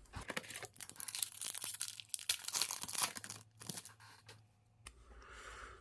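Hockey card pack wrapper being torn open and crinkled by hand: a dense run of crackles and small snaps that stops a second before the end.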